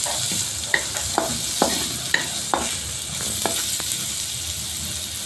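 Onion, garlic and bell pepper strips sizzling in hot oil in a metal wok while a wooden spatula stirs them, knocking and scraping against the pan about twice a second; the knocks thin out after about three and a half seconds.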